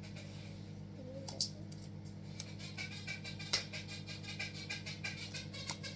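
Stiff, overactivated slime being stretched and worked by hand, giving many small irregular clicks and crackles. A steady low hum runs underneath.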